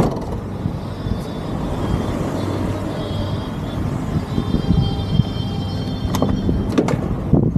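Low, steady vehicle rumble, with a high chirping in the middle and a few sharp clicks near the end.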